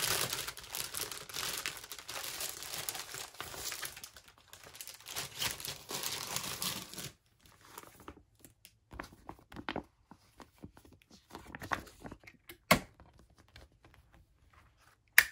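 Clear plastic binder sleeve pages crinkling and rustling as they are handled and turned, steadily for about seven seconds, then in sparser rustles. Two sharp snaps come later, the loudest just before the end.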